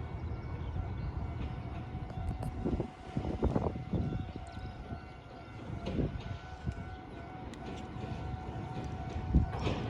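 Level crossing warning signal ringing steadily, with the low rumble and irregular thumps of a train on the line underneath.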